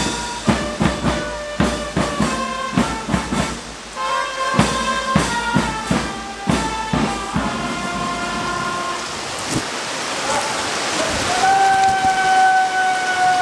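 A marching band's brass and drums playing in heavy rain; the music stops about nine seconds in, leaving the steady hiss of the downpour. Near the end a long held note starts over the rain.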